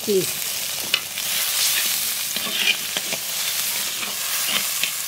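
Sliced onions and ginger-garlic paste sizzling in mustard oil in a clay pot, with a steady hiss. A metal spatula stirs them, clicking and scraping against the pot now and then.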